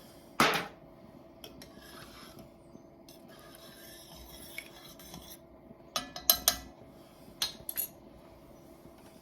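Utensil scraping and clinking against a cooking pot as thick chicken filling is transferred into a foil pan: a sharp knock about half a second in, soft scraping for a few seconds, then two quick flurries of clinks near the end.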